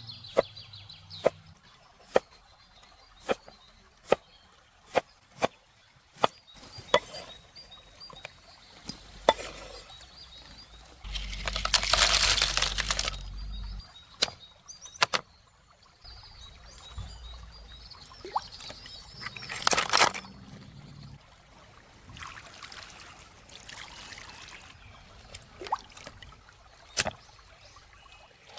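Knife chopping on a cutting board in single strokes about once a second, then liquid being poured, in a longer pour and a shorter one.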